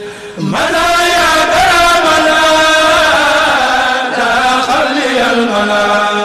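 A Mouride kourel chanting an Arabic khassida: male voices, with one voice coming in about half a second in on a long, wavering melodic line that settles into a held note near the end.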